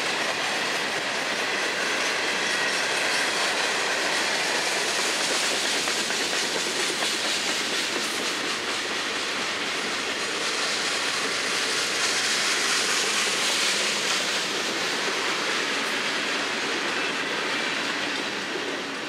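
Freight cars of a Florida East Coast freight train rolling past, a steady rumble and rattle of steel wheels on the rails that fades near the end as the last car goes by.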